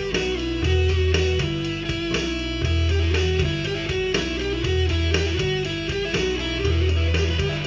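Solo electric guitar piece: a low note recurs about every two seconds beneath a running line of quicker, higher melody notes.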